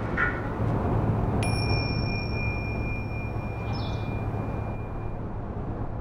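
Steady low rumble of a vehicle driving. About a second and a half in, a single struck metallic tone rings out and holds for nearly four seconds, with a high overtone that dies away first.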